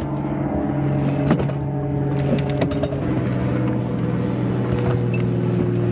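Hoisting gear at work as a line is hauled in through blocks to the cockpit, lifting a roller-furling forestay up the mast: scattered sharp mechanical clicks over a steady low hum.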